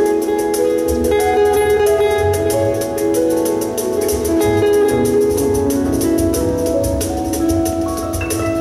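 Live acoustic music: an acoustic guitar plays over a plucked upright double bass.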